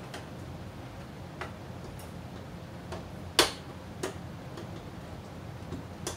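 Small plastic toy pieces clicking and tapping against a plastic toy camper and tabletop: a handful of light, irregular clicks, the sharpest about halfway through.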